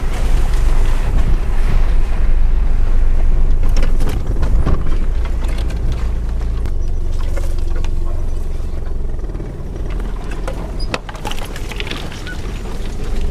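4x4 driving slowly over a rough dirt track: a steady low engine and drivetrain rumble with knocks and rattles as it jolts over bumps. Near the end, bushes scrape and brush along the side of the vehicle.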